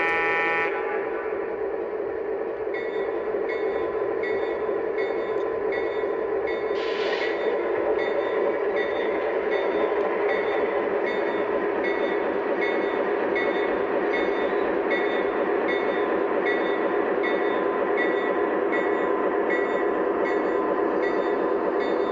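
Lionel Legacy ALCO PA model diesel's onboard sound system playing the prime mover running as the units pull away, with the model's wheels on the track. A ding repeats about twice a second from about three seconds in, and a short hiss comes about seven seconds in.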